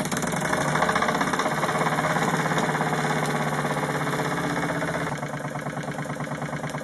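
Wilesco D16 model steam engine running at speed in reverse, its cylinder puffing in a rapid, even chuff. The beat eases slightly about five seconds in.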